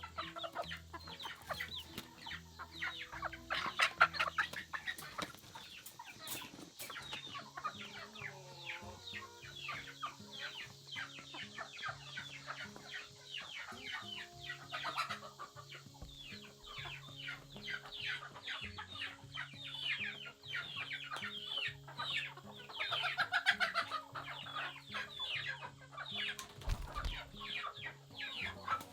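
A flock of young chickens clucking and cheeping, a continual run of short calls that swells into busier flurries twice. Soft background music with a slow, stepping line of low notes plays underneath.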